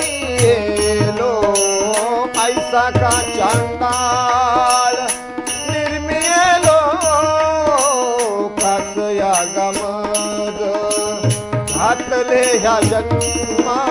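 Marathi abhang devotional music: harmonium holding the melody, tabla strokes, and small hand cymbals (taal) clinking at an even beat, with a man's voice singing a wavering line over them.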